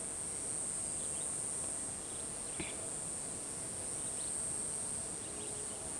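Insects droning in one steady, continuous high-pitched buzz, with a faint tick about two and a half seconds in.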